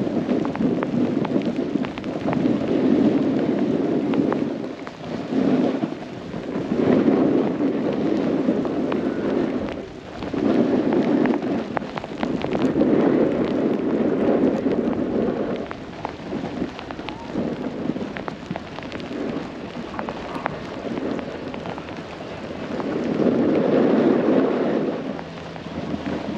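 Snowboard sliding and scraping over snow with wind rushing over the microphone, a loud rumbling noise that swells and fades every few seconds.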